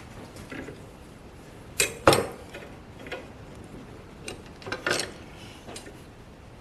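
Metal clamps and tools knocking and clinking against a cast iron part as they are handled. There are about half a dozen separate knocks, the loudest about two seconds in.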